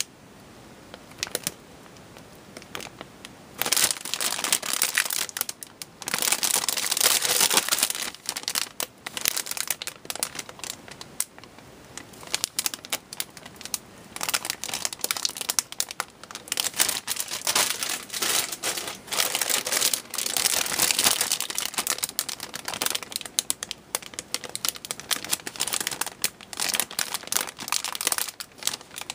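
Clear plastic bags around plastic model-kit runners crinkling as they are handled and leafed through, in quick irregular bursts that start about four seconds in after a few faint clicks.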